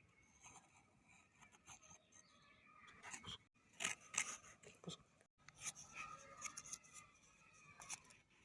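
Faint, irregular scraping and clicking of hands working with cardboard and small parts, cut off briefly twice.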